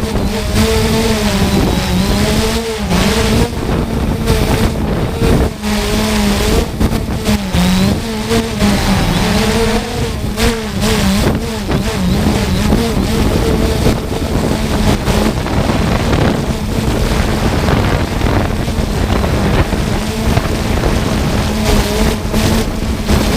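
3DR Solo quadcopter's electric motors and propellers humming steadily, the pitch dipping and recovering every second or two as the motors correct against strong gusts. Heavy wind buffeting on the microphone rumbles underneath throughout.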